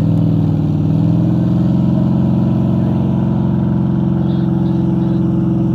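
A recovery truck's engine held at high revs, pulling a dead vehicle through deep sand. The note is loud and steady, with one brief dip just before it settles.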